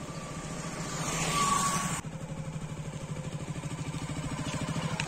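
Motorcycle engine running as the bike rides up toward the microphone, with a rapid, even putter that grows louder. A brief rush of noise rises and falls about a second and a half in.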